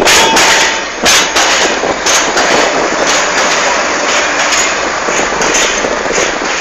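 Railway ballast tamping machine at work: a loud, dense mechanical clatter broken by sharp irregular knocks, several a second.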